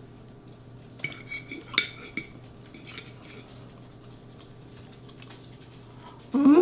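Metal fork clinking and scraping against a dinner plate while twirling spaghetti, with a cluster of light clinks a second or two in and a few fainter ones after. Near the end comes a short, loud vocal sound.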